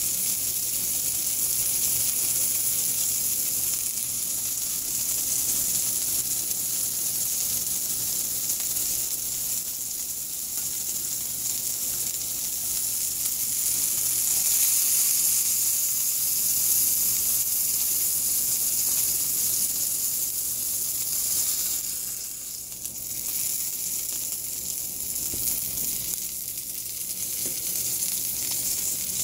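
Bacon-wrapped sandwich sizzling in a frying pan of bacon grease, held on its edge with tongs to brown the bacon: a steady, high-pitched frying hiss that dips briefly about three quarters of the way through.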